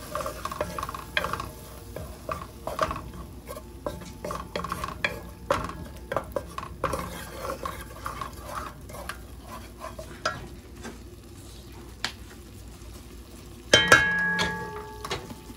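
Sofrito and recaíto sautéing in hot achiote oil in a pot, sizzling while a spoon stirs and scrapes it with frequent clinks against the pot. The stirring thins out near the end, then comes one loud ringing clank of the utensil against the pot.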